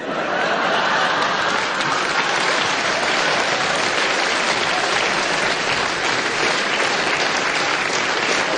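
A large audience breaking into steady applause, many hands clapping in a dense, even patter.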